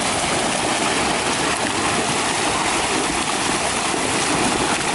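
Steady splashing and churning water from a mass of fish thrashing at the surface inside a seine net as it is drawn in.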